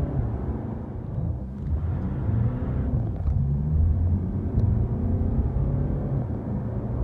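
Mercedes-Benz C220d's four-cylinder diesel engine accelerating hard, heard from inside the cabin. About two to three seconds in, the engine note breaks off, then climbs again as the car pulls up through the revs.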